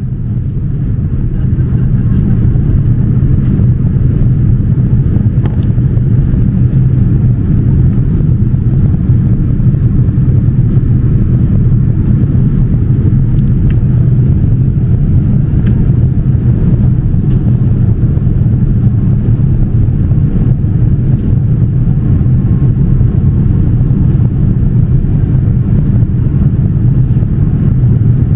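Steady low rumble of engine and airflow noise inside the cabin of a Boeing 787-9 airliner in flight on descent, fading up at the start and then holding level.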